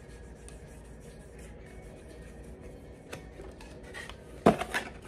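Handling noise: rubbing and small clicks as an object is handled and fiddled with, with one sharp knock a little before the end.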